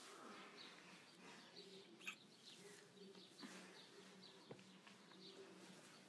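Near silence, with faint small-bird chirps repeating and a faint steady low hum beneath them.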